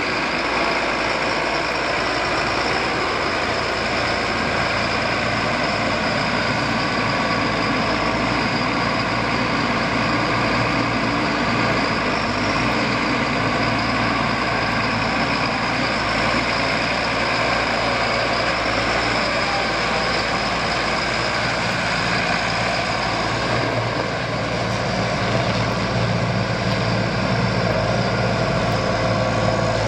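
Case MX250 Magnum tractor's diesel engine running steadily.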